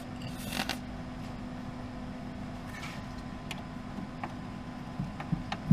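A short hiss of aerosol penetrating oil sprayed onto a rusted brake line fitting about half a second in, then a steady background hum with a few small metallic clicks from the fitting being worked, the sharpest near the end.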